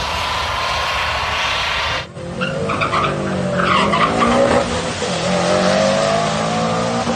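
Pickup truck accelerating hard down a drag strip, its engine note rising, dropping at a shift and rising again as it passes. Short high squeals come in the first seconds of the pass.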